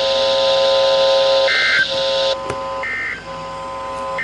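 Emergency Alert System end-of-message data tones closing a severe thunderstorm warning broadcast: short, screechy digital bursts about 1.3 s apart over a steady buzzing hum. A band of radio hiss cuts off about halfway, followed by a click.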